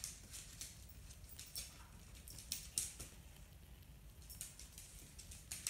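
A puppy's claws tapping on a wooden floor in soft scattered clicks, with her paw knocking against an upturned stainless steel dog bowl.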